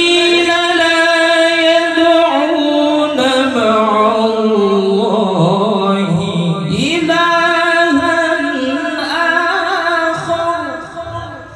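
Young male qari reciting the Quran in melodic tilawah style: one long phrase of held, ornamented notes that sinks lower in the middle and climbs again about seven seconds in, then fades out shortly before the end.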